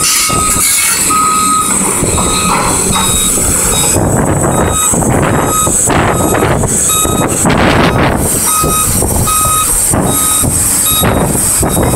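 Backup alarm on heavy earthmoving machinery beeping at a steady pace over loud, rough machine noise.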